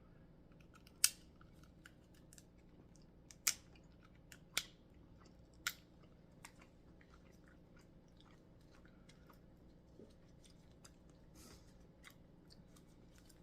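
A person chewing seafood, with several sharp clicks, the loudest about a second in and others around three and a half, four and a half and five and a half seconds.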